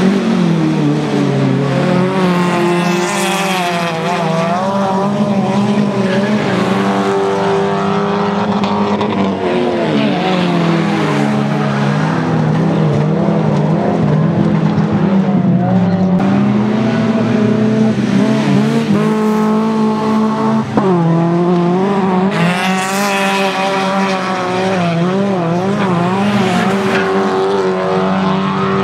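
Several autocross race cars' engines revving hard as a pack races by, the pitches rising and falling and crossing as the cars accelerate, shift gear and lift for corners.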